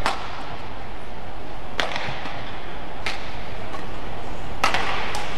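Steady murmur of a large badminton hall with a few sharp knocks. The two close together near the end are the serve and the return as a doubles rally starts, rackets striking the shuttlecock.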